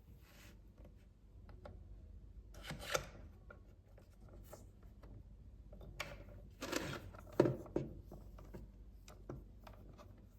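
Handling of toy packaging and small plastic playset pieces: bursts of rustling and scraping about three seconds in and again around seven seconds, with a few sharp clicks.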